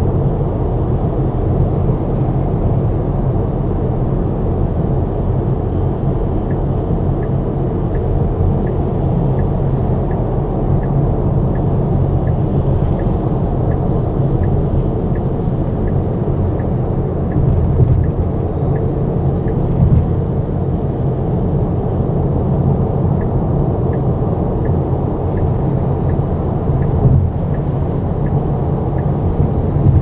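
Steady road and tyre rumble of a 2023 Tesla Model Y driving on the highway in the rain. A faint, regular ticking, about two to three ticks a second, comes in after several seconds and runs for long stretches.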